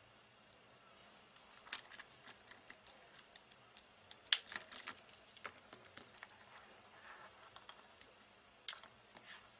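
Steel mesh watch bracelet and its folding clasp clinking as they are handled: a scatter of small metallic clicks and jingles, with three sharper clinks spread through it.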